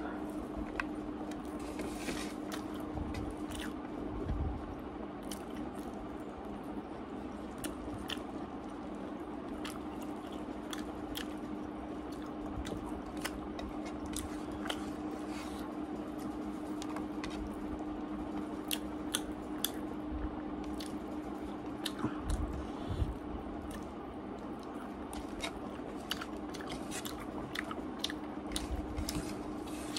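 Close-up eating sounds: chewing and mouth smacks, with fingers squishing and mixing rice on a plate, over a steady low hum.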